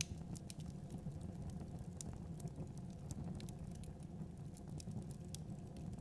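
Wood fire in a fireplace crackling: frequent irregular sharp pops and snaps over a low, steady rumble of the flames, with one louder pop right at the start.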